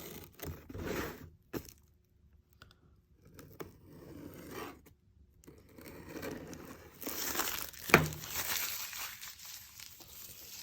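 Crinkling and tearing of plastic wrapping as a sealed plastic model kit box is opened, in irregular rustling handfuls with a short pause. There is a sharp snap or click about eight seconds in.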